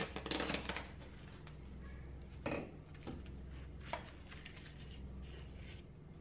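Plastic cling film crinkling as it is pulled from the roll and pressed over a bowl, with a burst of rustling in the first second and a few short crinkles and light knocks after it.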